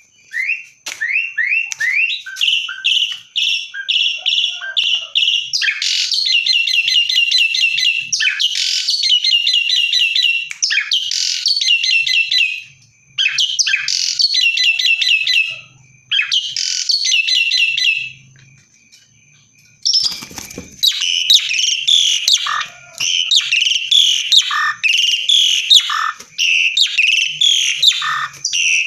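Asian pied starling singing loudly in full song: fast runs of repeated chattering and whistled notes in phrases with short breaks, and a longer pause about two-thirds of the way through.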